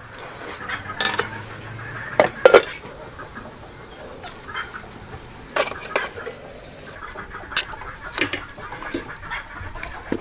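Farmyard fowl clucking now and then, with a few clinks of metal utensils and dishes; the loudest sounds are a pair of sharp ones about two and a half seconds in.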